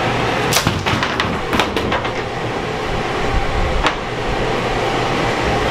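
Wooden bed frame parts knocking and clattering several times as they are handled and laid down, over a steady loud fan-like running noise.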